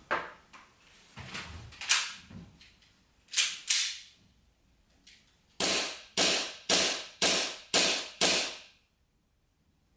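Airsoft gun firing: single sharp pops near the start and about two seconds in, a quick pair about three and a half seconds in, then a run of six shots about half a second apart.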